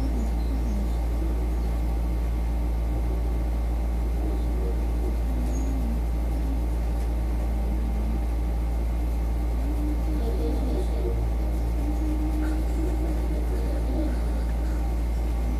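A steady low hum, with faint voices in the background now and then.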